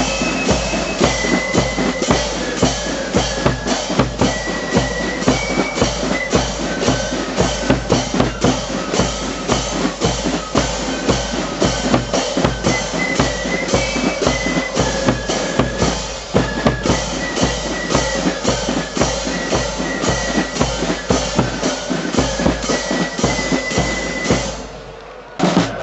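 Marching flute band playing a march: a high flute melody over a pounding bass drum, clashing cymbals and snare drums. Near the end the tune stops and there is a short lull before the drums start again.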